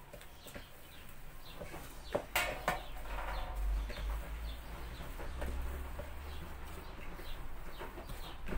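Hands kneading soft dough in a plastic bowl: repeated short squelches and soft knocks against the bowl, with a louder, squeakier patch about two seconds in.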